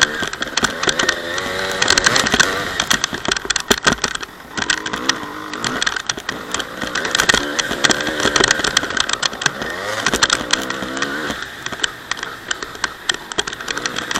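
Honda CR250's single-cylinder two-stroke engine revving up and down over and over as the dirt bike is ridden, with many sharp knocks and rattles throughout.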